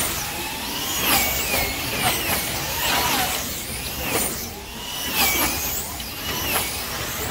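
Wing slot cars racing around a large slot car track: their small electric motors whine, the pitch rising and falling again and again as cars pass one after another, over a constant hiss.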